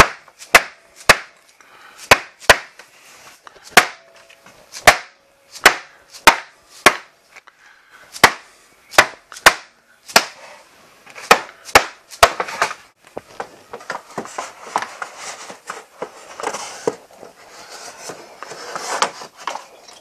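A rubber mallet knocking on a wooden panel board, a string of sharp, irregular knocks to loosen the stapled board. About twelve seconds in the knocking stops and gives way to scraping and rustling as the board is worked loose from its staples.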